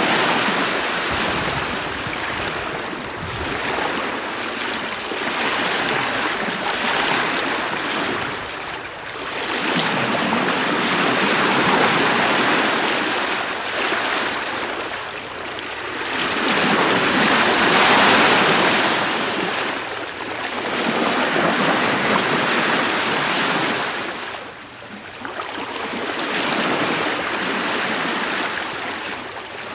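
A sailing ship's bow wave washing and hissing under the bow at about 4 knots, heard from the bowsprit. The water noise swells and eases in surges every few seconds as the bow meets the waves, with a light wind on top.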